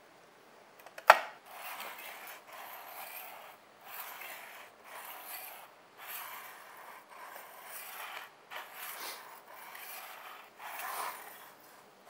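Sharpening stone stroked by hand along the edge of a steel kitchen knife, in repeated strokes of about a second each, honing the dull edge. A single sharp knock comes about a second in.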